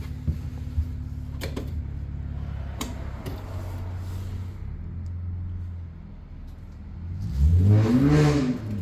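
Caterham 7 620S engine running steadily with a few light clicks, then briefly revved up and back down near the end.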